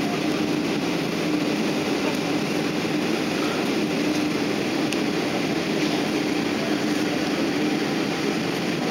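Steady jet-engine noise and rushing air heard inside an airliner's cabin during take-off, with a faint, wavering drone underneath.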